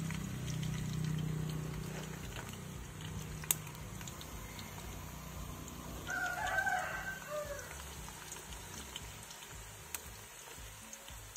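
A rooster crows once, faintly, about six seconds in, over a low steady background.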